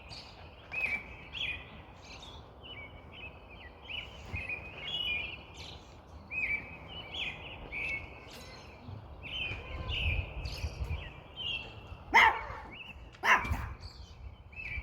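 Small songbirds chirping over and over, many short overlapping chirps with a low background rumble. Two loud sudden sounds cut in near the end.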